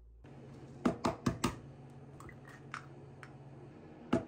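Sharp clicks and taps on a glass mixing bowl holding a raw egg: a quick run of four about a second in, a few fainter taps, then another quick run near the end, over a low steady kitchen hum.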